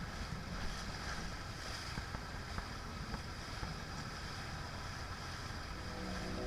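Steady wind and water noise aboard a large sailing yacht under way, with low rumbling wind on the microphone.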